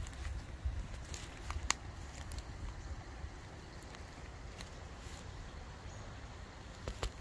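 Footsteps through brush, with scattered sharp cracks and crackles, busiest in the first couple of seconds and again near the end, over a low rumble of wind on the microphone.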